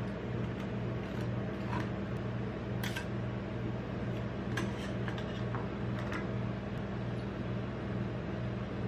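Steady low hum of an ice cream roll machine's refrigerated cold plate, with a handful of light scrapes and taps as a metal spatula is drawn across the frozen ice cream sheet on the plate.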